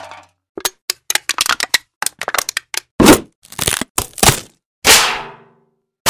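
A string of sharp cracks and snaps in an irregular quick run, followed by a few heavier separate hits that each ring out briefly: a sequence of impact sound effects.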